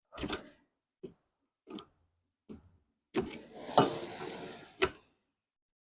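Screwdriver working stubborn screws on a kerosene heater's metal housing: a few separate clicks, then a cluster of sharp metal knocks with a short scrape about three to five seconds in.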